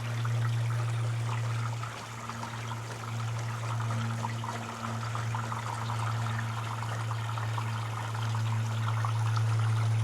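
Water running through a gutter fitted with a mesh gutter guard, trickling and splashing steadily over a constant low hum.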